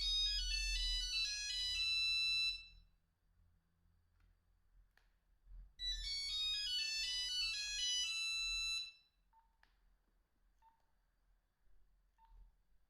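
Nokia 2110i mobile phone playing a short, fast monophonic ringtone melody through its speaker, twice, with a pause of about three seconds between. Near the end come a few faint short keypad beeps.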